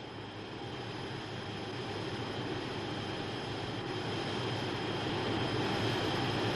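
Jet fighter on the runway: a rushing jet-engine roar with a high whine that grows steadily louder as the aircraft comes closer.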